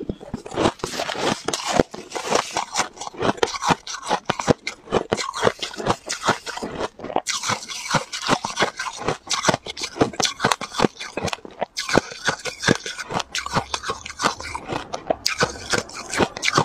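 Ice being crunched and chewed with passion fruit, close to a clip-on microphone: a dense, continuous run of sharp cracks and crunches in the mouth.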